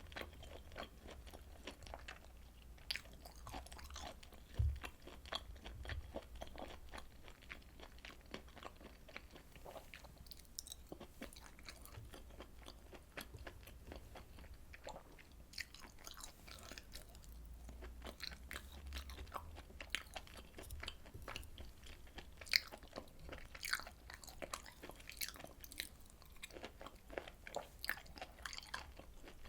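Close-miked chewing and biting of grilled beef and pork intestines, with dense, irregular small wet clicks and crunches over a faint low hum.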